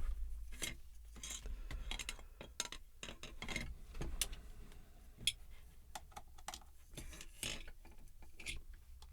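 Scattered small clicks and taps of plastic headphone parts being handled by hand, an earcup just opened for a teardown.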